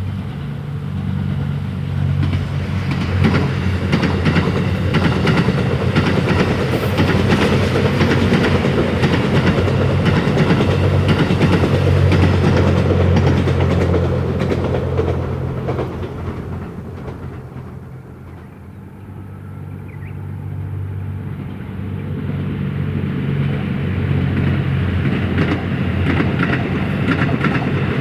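Series 87 Twilight Express Mizukaze diesel-electric luxury train running past, its diesel engines humming steadily under wheels clicking over rail joints. The sound fades to a low about two-thirds of the way through, then builds again as the train comes past once more.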